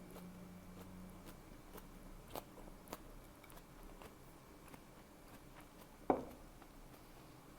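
Close-miked eating sounds: soft chewing and crisp crunches of a beef tongue salad with nori, with a sharper, louder bite about six seconds in.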